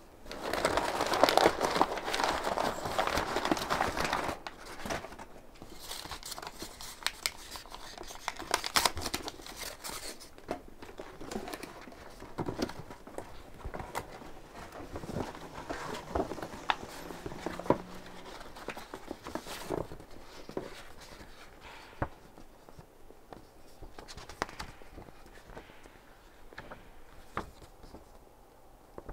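Close handling noise: hands rustling and crinkling right by the microphone. It is loudest for the first four seconds, then continues as scattered clicks, taps and lighter rustles.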